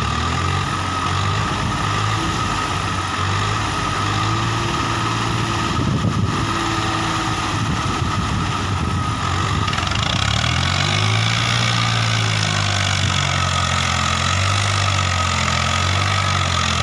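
Swaraj tractor's diesel engine running at steady low revs. The engine note shifts and rises a little about ten seconds in.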